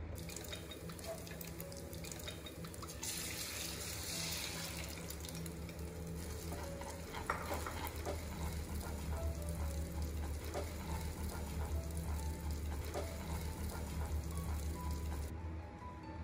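Water running from a tap into a sink, heavier for a couple of seconds about three seconds in and stopping near the end, with a single knock about seven seconds in.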